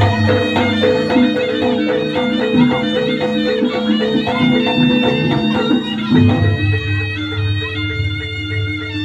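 Jaranan gamelan music: a reedy shawm-like pipe plays a sustained, wavering melody over drums and a low booming gong tone. The dense drum strokes thin out about six seconds in.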